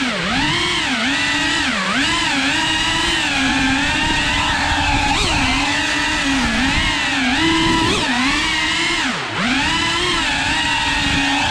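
Cinewhoop FPV drone's electric motors and ducted propellers whining up close, the pitch dipping and rising again and again with the throttle, with one deep drop in pitch and loudness a little after nine seconds.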